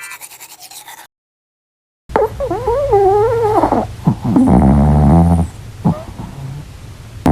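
Bulldog vocalising after a second of silence: a long moan that wavers up and down in pitch, then a low buzzy grunt about halfway through, with short clicks after it.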